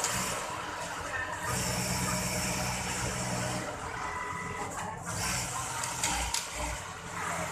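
Industrial sewing machines running on a garment factory floor: a steady mechanical hum and whir, with one machine run louder for about two seconds near the start.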